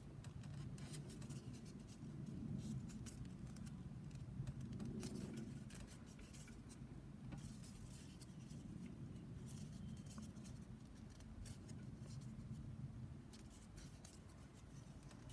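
Craft foam pieces being handled and pressed together by hand: faint rubbing and scratching of foam with scattered small clicks as a piece is pushed onto its plastic connector.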